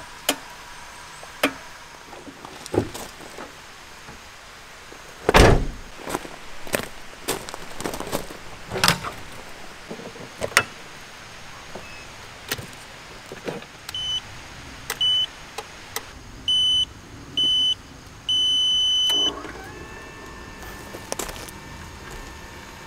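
Metal clunks and knocks from a trailer's ball coupling being worked onto a tow ball, the loudest about five seconds in. Then a series of electronic beeps, the last one longer, followed by a steady electric motor whine as an XGO trailer mover drives its roller against the trailer tyre.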